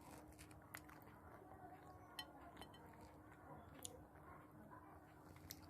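Near silence with a few faint, sharp clinks of dishes and cutlery, about four in all, and faint chewing during a meal.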